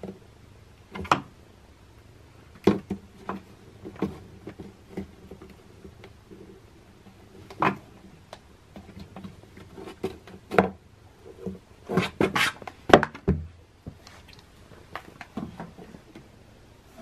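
Irregular clicks and knocks of a hollow plastic Easter egg being pawed by a cat, tapping against wooden furniture and a cardboard box, with the busiest run of knocks about twelve to thirteen seconds in.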